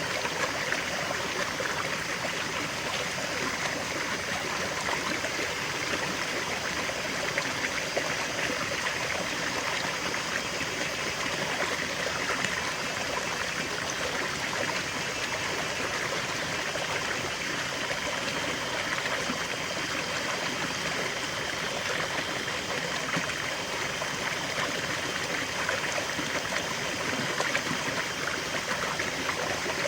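River water flowing and babbling over stones: a steady rushing with fine trickling and gurgling detail.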